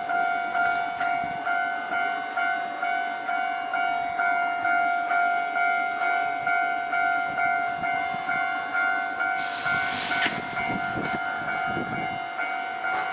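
Japanese level-crossing warning bell ringing in an even, quick repeating ding, about two or three strokes a second. About nine and a half seconds in comes a brief hiss, then a low rumble as a tram passes the crossing.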